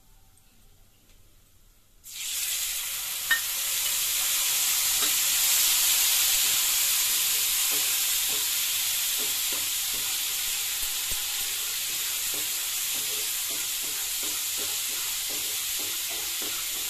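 Water-thinned spice paste hitting hot oil and cumin seeds in a nonstick frying pan: a loud sizzle starts suddenly about two seconds in and runs on steadily while a wooden spatula stirs the masala as it fries.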